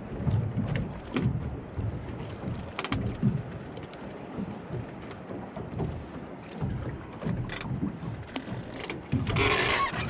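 Water slapping irregularly against a small boat's fibreglass hull, with wind noise and scattered light knocks, and a louder rushing hiss in the last second.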